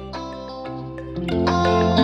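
Background music: held, sustained notes, quiet at first and growing louder with more notes joining over the second half.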